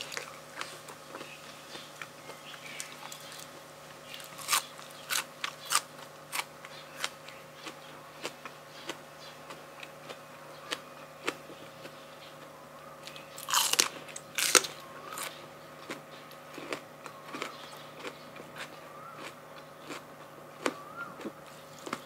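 A person biting and chewing crunchy food close to the microphone: several sharp crunches about four to six seconds in, and a louder run of crunching around fourteen seconds, with quieter chewing between.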